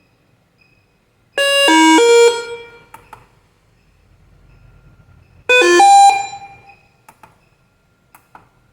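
Electronic call chime of a Multeletronic queue-number display panel, sounding twice: each time a quick run of three or four notes that starts sharply and fades away over about a second. A few faint clicks follow near the end.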